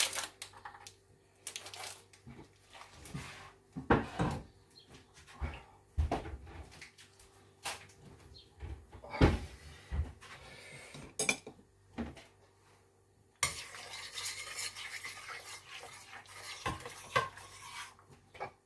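Kitchen clatter of utensils and dishes: a series of separate sharp knocks and clinks. In the last few seconds a spoon stirs and scrapes through thick sauce in a steel roasting pan.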